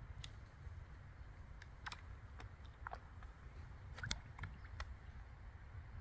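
Fish sucking and smacking at floating bread on the water surface: scattered sharp little pops and clicks, two close together about four seconds in, over a steady low rumble.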